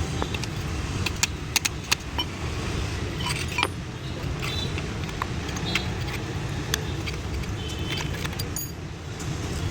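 Light metallic clinks and taps, scattered and irregular, of tools and small metal parts being handled during a car power-window regulator repair, over a steady low rumble of road traffic.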